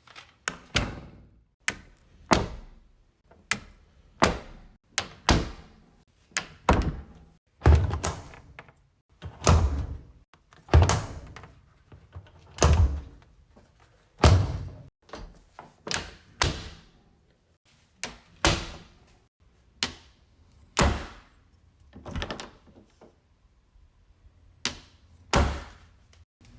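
Doors being opened and shut, one after another: about twenty separate latch clicks and shutting thuds spaced roughly a second apart, a few of them heavier shuts with a deeper thump.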